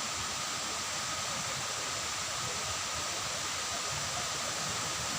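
Steady rush of falling water from a forest waterfall and stream, an even hiss with a thin steady high tone running through it.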